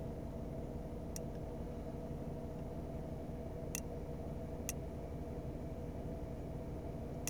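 Car engine idling with a steady low hum, with a few faint, light clicks from buttons on a handheld diagnostic scan tool.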